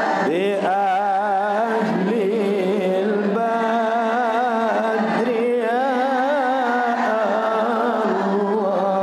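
A voice singing shalawat, a devotional Islamic chant in praise of the Prophet, in an ornamented melismatic style. The notes are long and wavering, with short pauses between phrases.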